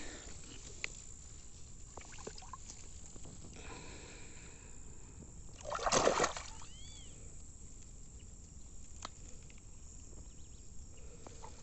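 A short splash of water about six seconds in, over a quiet lakeside background, as a large traíra (trahira) is handled at the water's edge for release.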